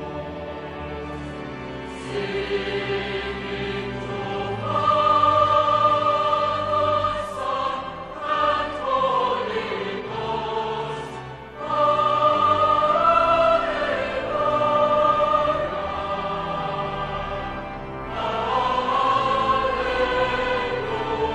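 Choral music: a choir singing slow phrases of long held notes that swell and fade.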